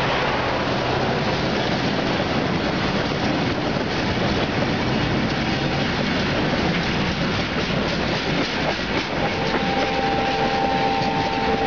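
RO-RO freight wagons loaded with lorries rolling past close by: the steady, loud running noise and clatter of the wagon wheels on the rails. A steady whine joins in about nine seconds in.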